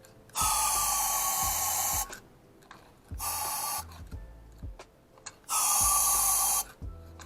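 Compressed-air blow gun fired in three hissing bursts, the first about a second and a half long, the second short, the third about a second, into the ports of a KA24DE cylinder head. It is a leak test of freshly lapped valves, with water standing in the combustion chambers.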